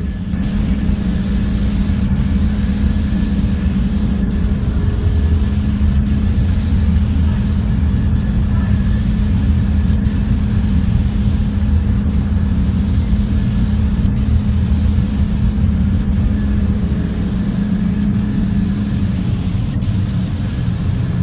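Paint spray gun hissing steadily as it sprays, with a low steady hum underneath.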